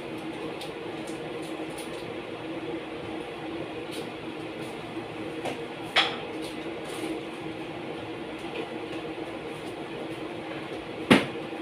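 Pot of sinigang broth simmering on a gas burner: a steady low hum and hiss, with two sharp ticks about six and eleven seconds in.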